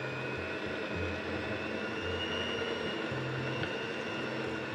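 Electric mixer running steadily with a motor whine, beating butter, vegetable oil and sugar together into a creamy mixture.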